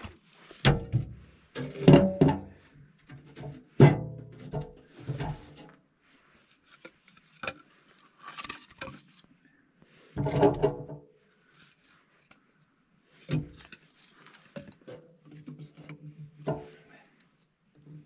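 Split birch logs knocking and clattering against one another and against a small metal wood stove as firewood is loaded into it. The knocks are separate and irregular, with short pauses between them; the loudest come in the first few seconds and again about ten seconds in.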